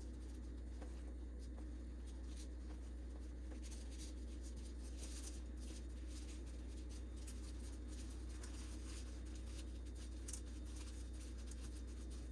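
Faint rustling and light tapping of hands folding and rolling egg roll wrappers, with scattered soft clicks, over a steady low hum.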